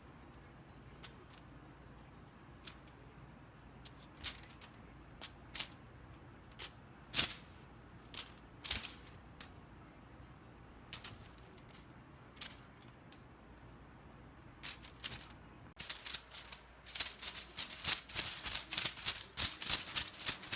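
Scattered light clicks and small rattles at irregular intervals, turning into a rapid run of clicking and rattling for the last few seconds.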